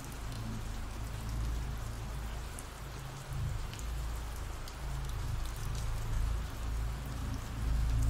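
Ambient rain sound effect: steady rain falling, with faint scattered drop ticks and a low rumble underneath.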